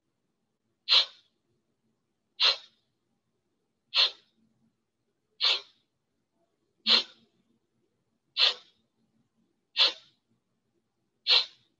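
Kapalabhati (skull-shining breath): a person's short, forceful exhalations through the nose, one about every second and a half, eight in all.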